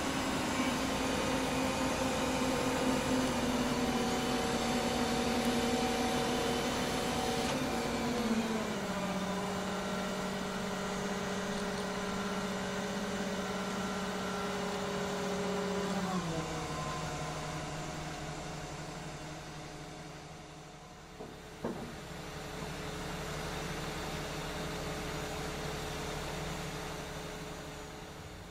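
Heavy diesel engine of a crane running under load while lowering a locomotive truck, its speed dropping in two clear steps, with a short knock about three quarters of the way through.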